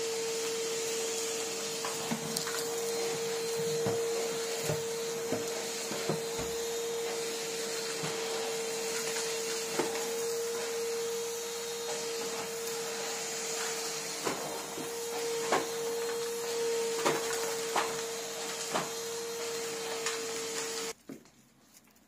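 Henry vacuum cleaner running with a steady whine over a hiss, with a few scattered knocks as the hose and wand are handled. The motor cuts off suddenly about a second before the end.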